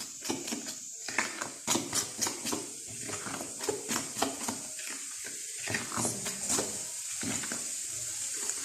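Fork stirring a soft dough in a bowl, with irregular clinks and scrapes of the fork against the bowl.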